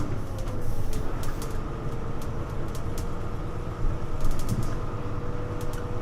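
Hino U-HU2MLAA city bus heard from inside the cabin while under way: engine and drivetrain running with a low rumble and a thin steady whine that rises a little at first and then holds, with light rattling clicks throughout.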